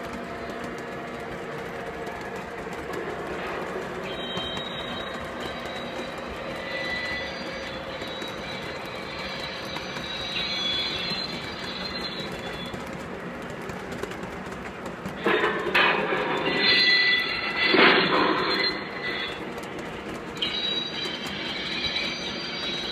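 Model freight train rolling past on layout track: a steady rolling rumble of wheels on rails with a faint steady hum. For a few seconds about two-thirds of the way through it grows louder and clattery, with some higher ringing tones.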